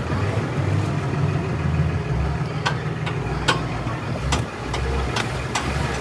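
An engine idling with a steady low rumble. Several sharp clicks or knocks come in the second half, about half a second to a second apart.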